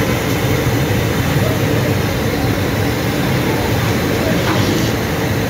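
Steady roar of a gas burner on high flame under a large wok of oil, with the sizzle of whole chickens deep-frying.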